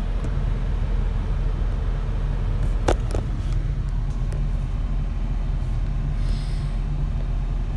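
Ford F-350 pickup's engine idling, a steady low rumble heard from inside the cab, with a single sharp click about three seconds in.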